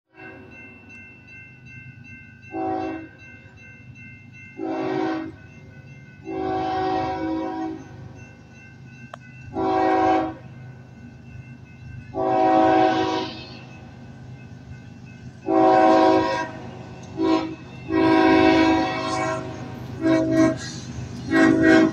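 Kansas City Southern diesel locomotive's multi-chime air horn, blown in a long irregular string of about ten blasts, some short and some held for over a second, as a horn salute. Under it runs the low rumble of the approaching train.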